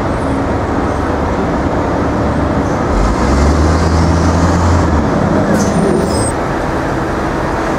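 City street traffic running steadily, with a heavy vehicle's engine drone swelling loudest from about three to five seconds in.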